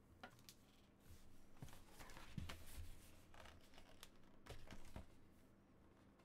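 Faint, intermittent rustling, scraping and soft ticks of a stiff white cardstock envelope as fingers pick and pull at its sealed flap, trying to open it.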